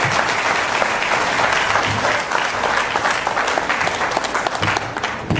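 A roomful of people applauding, with dense, steady clapping.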